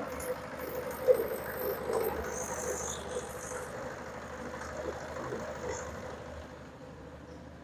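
Small stationary engine running steadily, growing fainter toward the end.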